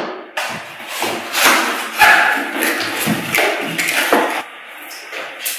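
Irregular knocks and rustling handling noises for about four seconds, then quieter.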